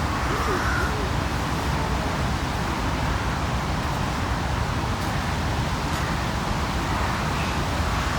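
Steady low rumble of distant city traffic, with a crow cawing faintly once about half a second in.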